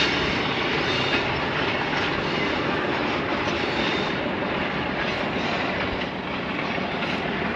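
Hitachi PHA-20 diesel-electric locomotive working hard under load as it accelerates an express train away, heard as a steady, even engine rumble from the distance.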